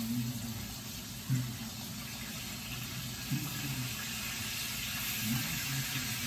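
Plantain slices frying in hot oil in a skillet, a steady sizzle as more slices are laid into the pan.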